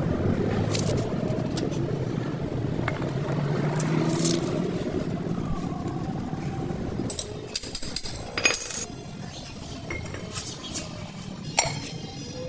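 A steady low rumble that fades after about seven seconds, then a run of sharp metallic clinks and taps of metal parts being handled, the loudest about eight and a half seconds in with a brief high ring.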